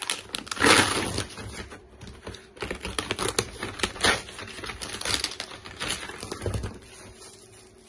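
A taped cardboard box being torn open and the bubble-wrapped items inside handled: crackling, rustling and tearing of packing tape, cardboard and bubble wrap, with many small clicks, loudest about a second in.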